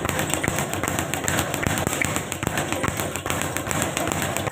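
Speed bag being punched continuously, the bag knocking against its round rebound platform in rapid, even strikes.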